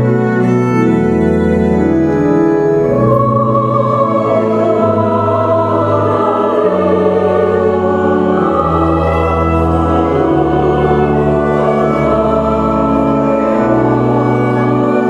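Mixed choir of men and women singing a slow church hymn in parts, with a pipe-style church organ holding long sustained chords beneath. The organ carries the opening alone and the voices come in about three seconds in.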